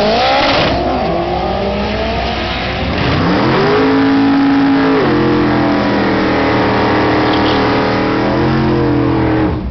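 Drag cars, a four-cylinder Audi quattro and a Corvette, launching and accelerating hard down the strip. Engine pitch climbs and drops back at each gear change over the first three seconds, then holds in steady tones until it falls away near the end.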